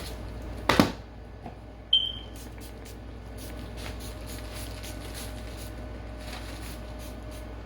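A package is set down with a knock, then sprayed with a spray bottle: a short squeak, then a run of faint, quick hissing spritzes to disinfect it.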